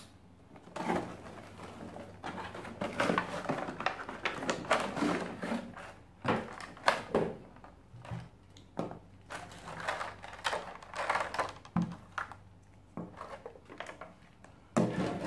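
Unpacking a Chicco manual breast pump: the cardboard box opened, a plastic bag rustling, and the pump's plastic parts knocking lightly as they are taken out and set down, in irregular rustles and taps.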